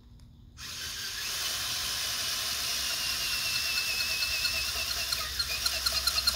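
Cordless drill running an auger bit into hard, dry dirt. A steady motor whine starts about half a second in and turns into a fast pulsing rattle near the end as the bit labours in the ground.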